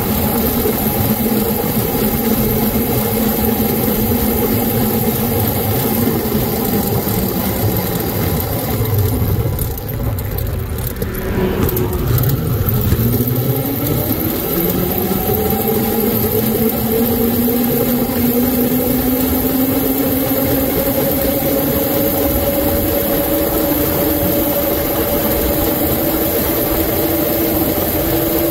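Electric hub motor of a custom 1800 W, 52 V mini scrambler whining under way, over a steady rush of wind and road noise. The whine drops away about ten seconds in as the bike slows. It then climbs gradually in pitch as the bike accelerates back up to speed.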